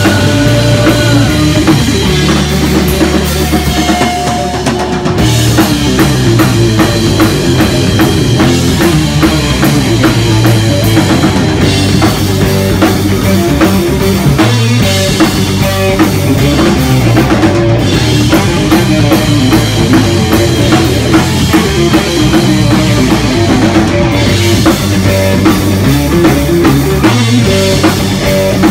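Rock band playing live and loud: a driving drum kit with steady, dense beats under electric guitar.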